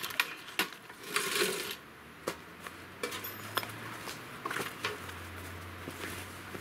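Heavy canvas bag being handled and lifted from a table: cloth rustling with a few light clicks and knocks from its metal rings and the table.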